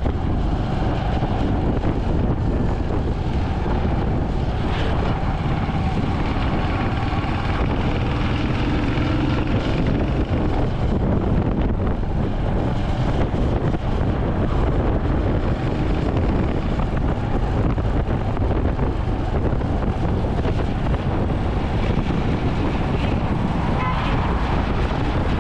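Royal Enfield Hunter 350's single-cylinder engine and exhaust running steadily at highway cruising speed, with wind rushing over the microphone.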